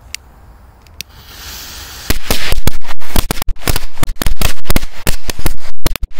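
A firecracker strip ('machine-gun belt') going off, starting about two seconds in: a rapid, irregular string of loud bangs lasting about four seconds.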